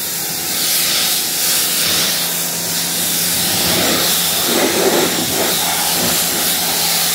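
Pressure washer spraying water onto a car door, rinsing off the pre-wash foam: a steady hiss of spray with a steady low hum underneath.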